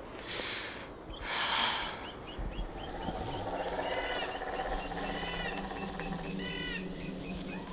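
Film soundtrack of a woodland edge. Two short rustling bursts of noise come in the first two seconds. About three seconds in a low, steady drone sets in, and short repeated bird calls are heard twice over it.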